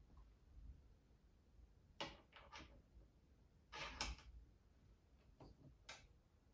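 Faint clicks and knocks of an Artemis P15 air rifle being handled as it is reassembled, a few separate taps about two, four and six seconds in.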